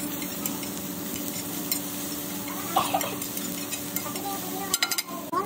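Metal blade chopping and scraping vegetables on a hot iron tawa, the food sizzling steadily, with sharp clicks of metal on the griddle and a quick run of them near the end.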